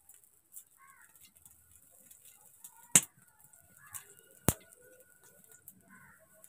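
Two sharp knocks about a second and a half apart, with faint clucking of chickens in between.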